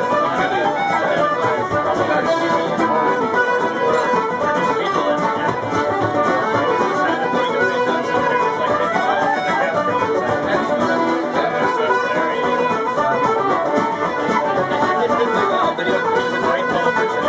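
Live Irish traditional session music: a squeezebox plays a brisk tune over the steady beat of a bodhrán frame drum, with other instruments joining in.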